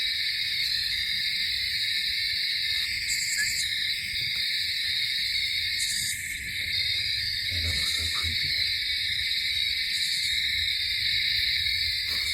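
Owl hooting in woods at night over a steady high-pitched drone.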